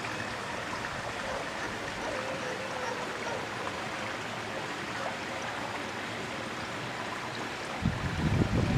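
Swimming pool water running steadily into the overflow gutter along the pool edge, a continuous rushing hiss. Near the end, wind starts buffeting the microphone in low rumbles.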